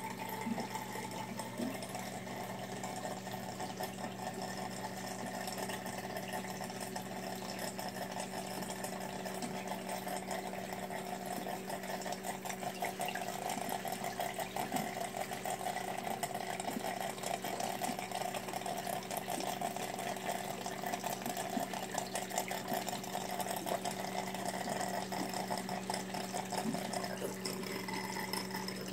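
Reef aquarium's water circulation: a steady low pump hum under continuous trickling and splashing water.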